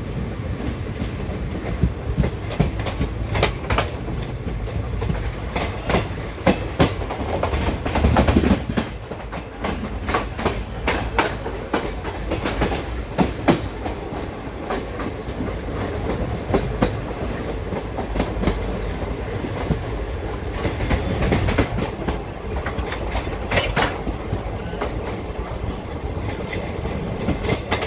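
Passenger train running at speed, heard from the open door of a coach: a steady low rumble with the wheels clacking irregularly over rail joints and points.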